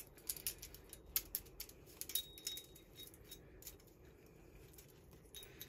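A loose Stihl .325-inch saw chain clinking as it is handled onto the chainsaw's guide bar: a quick run of light metallic clicks that thins out after about three seconds.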